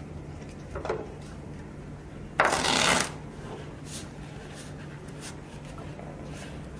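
A deck of playing cards being shuffled: one short burst of riffling about two and a half seconds in, with a few light taps and rustles of the deck being handled before and after.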